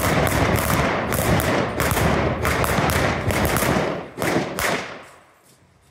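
Rapid exchange of revolver shots firing blanks, about three a second and overlapping, each with a short echo. The shooting stops about four and a half seconds in.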